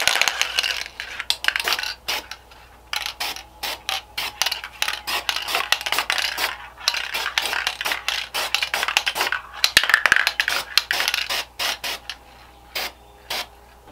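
Aerosol spray-paint can of red-rust colour being shaken, its mixing ball clattering in quick runs of clicks, with pauses about two, seven and twelve seconds in.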